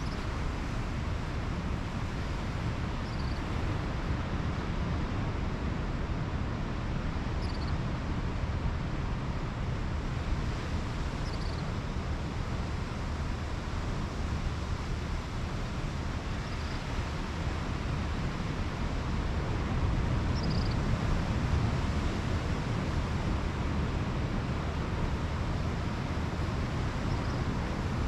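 Pacific Ocean surf washing steadily onto the beach, with wind rumbling on the microphone, swelling a little about two-thirds of the way through. A faint short high chirp sounds every few seconds.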